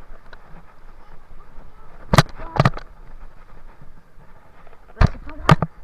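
Mountain bike rolling over a wet, leaf-covered dirt trail, with a steady rumble of tyres on the ground. Twice the bike jolts over bumps, each time giving a pair of sharp knocks about half a second apart.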